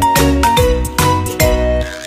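Background music with a steady, quick beat and a melody in short, stepping notes.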